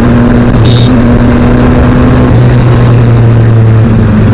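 Motorcycle engine running at a steady cruise under way, its hum shifting slightly in pitch a few times, mixed with loud wind and road noise.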